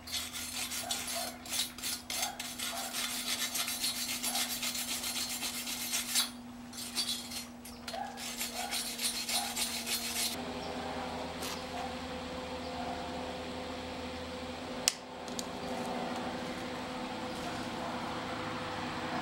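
Small wire-feed welder's arc crackling and sizzling in bursts as a steel tube is welded, over a steady hum, through about the first ten seconds with a short break partway. After that a steadier hum and hiss, with a single sharp click about five seconds later.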